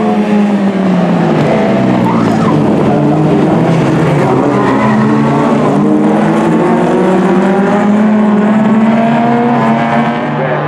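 Several folk-race cars racing, their engines running hard with pitches rising and falling as they rev through the corners, and tyres skidding.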